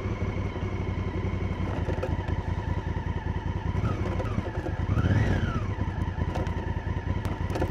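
Honda Africa Twin's 998 cc parallel-twin engine running at low revs off-road, revving up and back down once about five seconds in.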